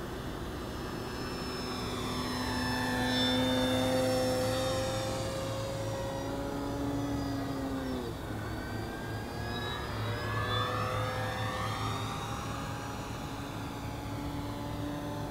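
Electric motor and propeller of a 55-inch balsa RC Super Decathlon flying past: a steady whine that grows loudest a few seconds in, then drops sharply in pitch as the plane passes by about eight seconds in.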